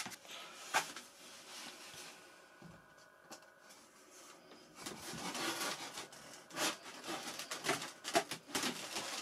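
Handling noise of a foam RC model wing and its carbon wing rod: a single small click, then from about halfway scratchy rubbing and small knocks as the rod is pushed into the plastic socket and the foam parts are fitted together.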